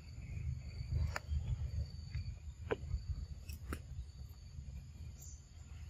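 Forest ambience: a steady high-pitched insect drone over a low rumble, with a few sharp clicks, about a second in and again around three to four seconds.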